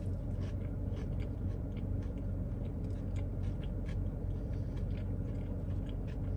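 A mouthful of pretzel-bun sandwich being chewed with the mouth closed: faint, irregular soft clicks and squishes. Beneath them runs the steady low hum of a car cabin.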